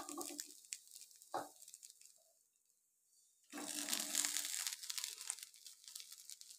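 Small fried mourala fish being turned in a hot kadai of spiced onions with a metal spatula: a crackling sizzle with spatula scrapes that starts after a brief near-silent gap about halfway through and then fades.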